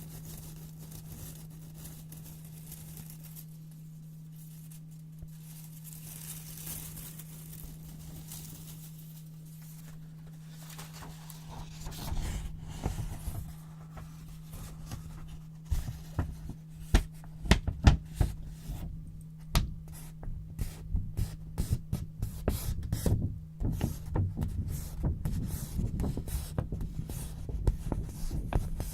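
White paper being handled and cut with scissors close to the microphone: faint rustling at first, then from about twelve seconds in a quick run of crisp snips and crinkles. A low steady hum runs underneath throughout.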